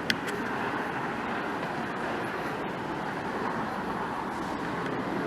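Steady hum of distant road traffic, with one sharp click just after the start.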